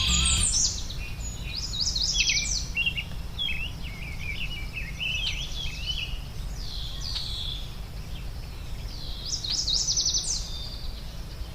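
Songbirds singing: quick chirps and trilled phrases in bursts, busiest at the start and again near the end, over a steady low background rumble.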